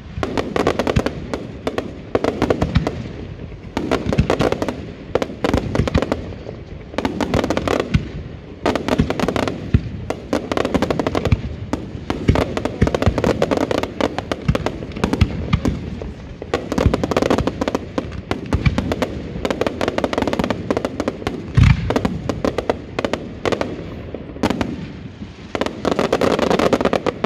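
A fireworks display finale of aerial shells and single shots, firing in dense rapid volleys of bangs and bursts. The volleys are broken by a few short lulls, and one heavier boom comes about two-thirds of the way through.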